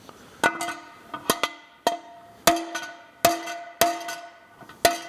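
Hammer blows on a hand-forged carbon steel roasting pan, about nine sharp strikes at an uneven pace. Each leaves the pan ringing briefly at the same few metallic pitches.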